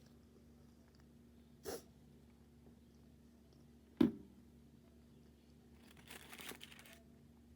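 Sounds of a meal being handled at the table: a short knock, a sharp louder knock about four seconds in as something is set down, then about a second of crinkly rustling of paper or packaging near the end.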